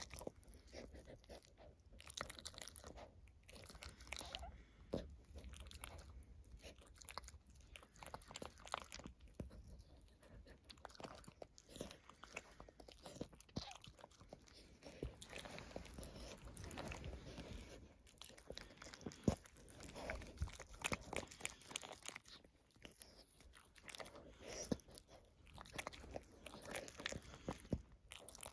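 Mother dog licking her newborn puppy up close: faint, irregular wet licking and mouth clicks.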